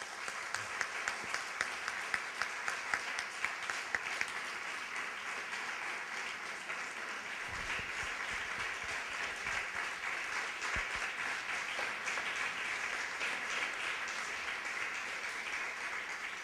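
Audience applauding steadily, with a few louder single claps close to the microphone standing out in the first few seconds.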